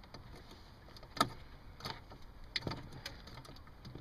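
A few short, sharp clicks and knocks of hard plastic parts being handled and pushed into place at the back of a 2008 Ford Focus headlamp unit while a new bulb is fitted. The loudest comes about a second in, with others near two and two and a half seconds in.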